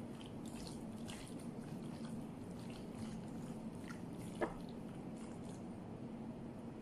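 Hands mixing seasoned shredded lamb in a glass dish: faint, irregular wet squishing over a steady low hum, with a single click about four and a half seconds in.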